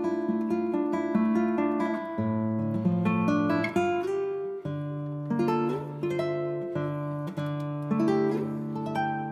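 Background music on acoustic guitar: plucked notes in a steady run over held bass notes.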